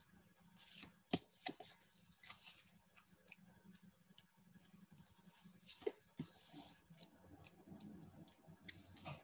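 Quiet handling noises: scattered sharp clicks and a few brief rustling swishes, the loudest about a second in, at two and a half seconds and at six seconds.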